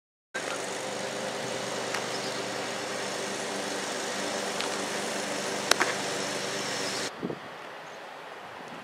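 A steady mechanical hum with several low tones, like a motor running nearby, starting suddenly just after the start and cutting off about seven seconds in. About five and a half seconds in, a sharp pop sounds as a fastball smacks into the catcher's mitt.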